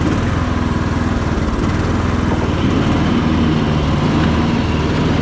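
Troy-Bilt Bronco riding tractor's engine running steadily after being brought back to life.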